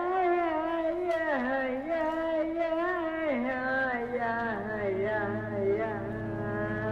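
Live contemporary classical music: voices sing a single slow melodic line that slides between pitches. About four and a half seconds in, a low buzzing drone enters underneath.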